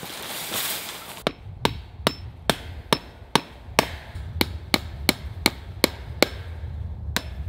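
Hammer striking repeatedly at a wooden fence post, fastening woven wire fencing to it: about fourteen sharp blows, two or three a second, each with a short metallic ring, starting after a brief rustle about a second in and pausing briefly near the end.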